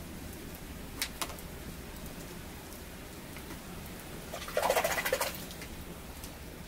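A short, choppy bird call about four and a half seconds in, preceded by two faint clicks about a second in.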